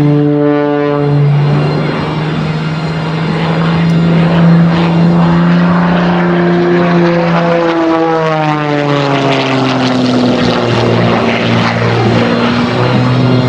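MXS-RH aerobatic monoplane's 540-cubic-inch, 370-horsepower piston engine and propeller running loud during aerobatics. The engine note climbs, then falls away steadily from about eight seconds in.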